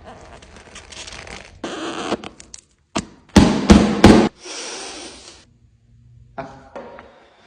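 Packaging being handled and opened: rustling and rubbing, then three sharp, loud knocks in quick succession a little past the middle, followed by a brief stretch of rustling and some lighter clatter near the end.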